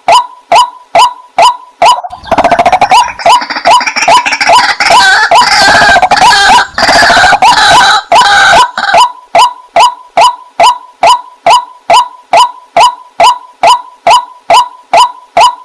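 Waterhen calling: a fast, even series of short, hoarse notes, about two to three a second. From about two seconds in until about nine seconds a louder, denser tangle of overlapping calls covers the series, which then goes on alone.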